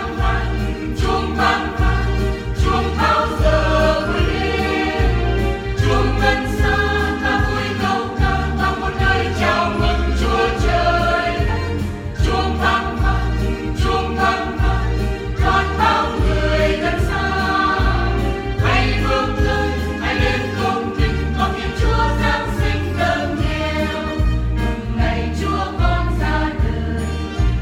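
Church choir singing a Vietnamese Catholic hymn over instrumental accompaniment with a steady bass beat.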